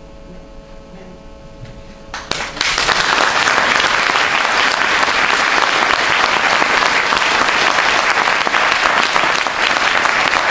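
Audience applauding: after about two seconds of quiet room hum, the clapping starts suddenly and carries on thick and steady.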